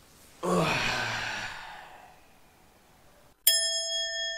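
A man's long, loud sigh as he flops back onto the bed, fading out over about a second and a half. Near the end, a bright bell-like ding starts suddenly and keeps ringing.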